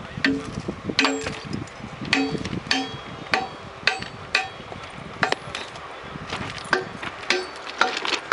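Hammer blows on the steel rail at a fresh thermite weld: about a dozen sharp, irregular strikes, roughly two a second, each ringing briefly.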